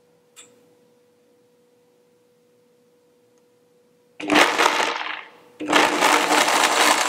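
Blendtec blender pulsed in two short runs, chopping a handful of soaked raw hazelnuts and cardamom coarsely rather than to a powder. The motor starts about four seconds in, stops briefly after a second or so, then starts again for a longer run. Before it starts there is only a faint steady hum.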